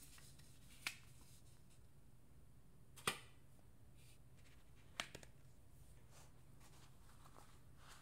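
Paper booklets and packaging handled with cotton-gloved hands: three sharp taps about two seconds apart, the middle one loudest, then soft paper rustles, over a faint steady hum.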